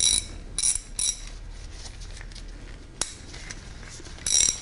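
Blackhawk 49975 half-inch drive ratchet being worked by hand: short bursts of metallic clicking from the pawl at the start, around a second in, and again near the end. The mechanism binds a little, which the owner thinks just needs lube.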